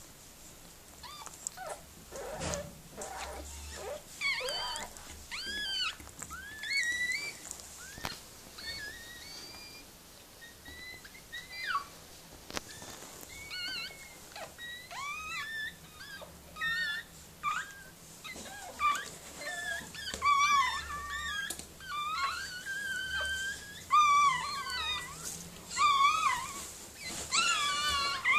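Newborn puppies squeaking and whimpering: a string of short, high-pitched calls that slide up and down in pitch, coming more often in the second half.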